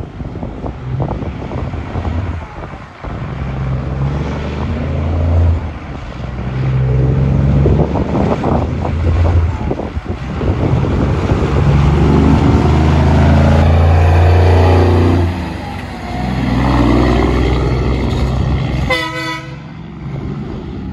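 Diesel engine of a long-hood Kenworth semi pulling a dump trailer, accelerating away through several gears, the note climbing and dropping back at each shift and loudest as it passes. A short horn blast sounds near the end.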